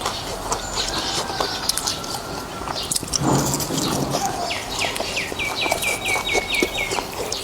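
Eating noises from a bowl of noodles in beef soup: many small clicks and wet slurping and chewing sounds, with a louder burst about three seconds in. In the second half a bird calls a quick run of about ten short, falling chirps.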